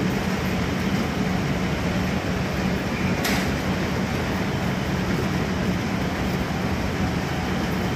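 Steady low hum and rushing noise of a running motor vehicle, with a brief high hiss about three seconds in.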